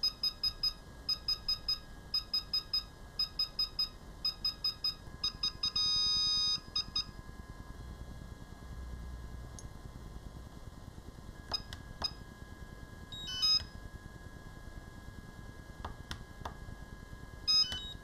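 DJI Phantom 4 Pro remote controller beeping during its firmware update: quick groups of three or four high beeps about once a second, ending in one long beep about six seconds in as the update completes. Later come a few clicks and two short chirps from the controller.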